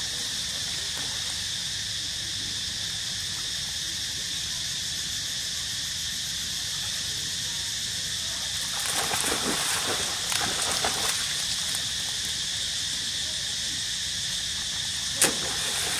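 Steady high-pitched drone of insects in the forest. About nine to eleven seconds in there is a burst of rustling, and near the end a single sharp click.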